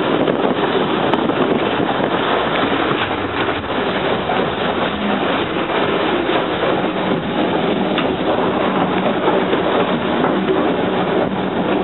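Steady noise of a steam-hauled train: GWR 0-6-2 tank locomotive 5643 and its carriages.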